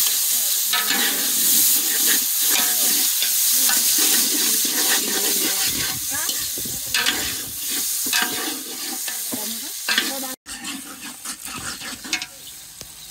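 Food sizzling in hot oil in a cooking pot while a spoon stirs and scrapes it, in repeated strokes. The sizzle is loudest for the first few seconds and dies down after about six seconds; it cuts out for an instant about ten seconds in and is quieter after that.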